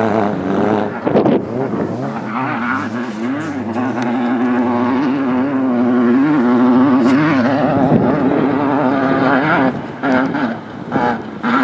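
Off-road race vehicle engines running hard, the pitch rising and falling with the revs. The note holds steady for a few seconds in the middle, then comes in several short bursts of revving near the end.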